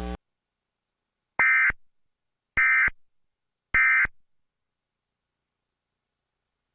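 Emergency Alert System end-of-message data bursts: three short, identical squawks of digital tones about a second apart, signalling the end of the alert. A steady hum cuts off right at the start.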